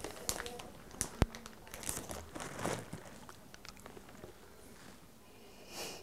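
Plastic snack bag crinkling as a hand rummages in it for candy: irregular rustles and small clicks, with one sharp click about a second in.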